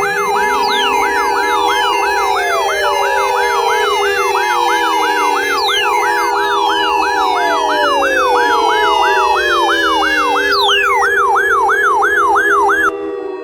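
Layered electronic siren sounds: a fast yelp cycling up and down about two to three times a second over steady held tones, with several long falling pitch sweeps layered over it. It cuts off abruptly near the end.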